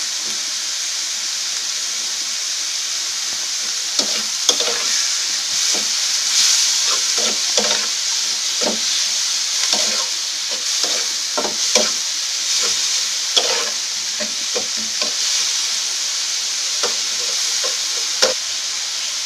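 Snake gourd seeds with garlic, onion and green chillies sizzling in mustard oil in a metal kadai, a steady hiss as the seeds give off their water. From about four seconds in until near the end, a steel spatula scrapes and knocks against the pan in irregular strokes as the mixture is stirred.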